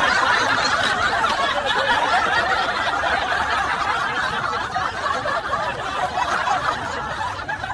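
Several people laughing together in a long, continuous bout, which cuts off suddenly at the end.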